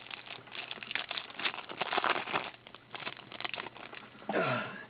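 Trading card pack wrapper crinkling and rustling in the hands as the pack is torn open and the cards are pulled out, a dense run of irregular crackles. A short hummed vocal sound follows near the end.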